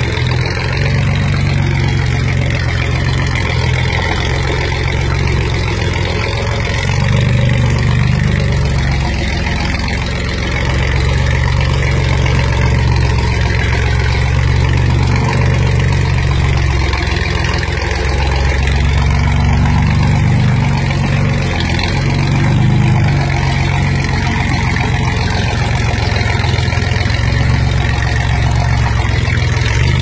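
Chevrolet Blazer's engine running at low revs under load as the truck crawls up a wet rock ledge, the revs rising and falling with a few louder pushes.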